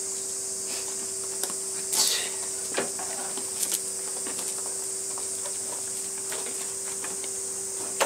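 Metal clacks and a short scrape as the long rods of a folding aluminium camp kitchen table are handled and fitted into its frame: a few sharp knocks, the loudest about two seconds in, another at the very end. Under them runs the steady high drone of insects.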